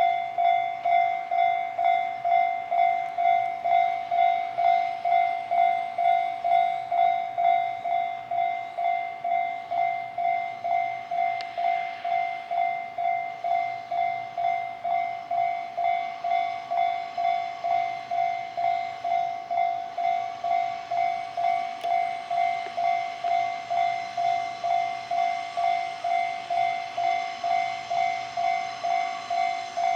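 Japanese level-crossing warning bell ringing, one steady electronic tone struck just under twice a second, signalling that a train is approaching.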